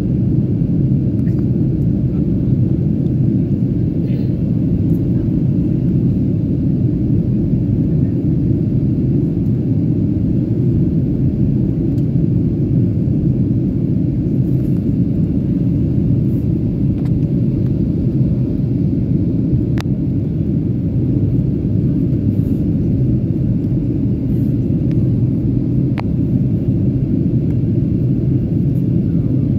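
Steady low rumble inside an airliner cabin in flight: jet engine and airflow noise.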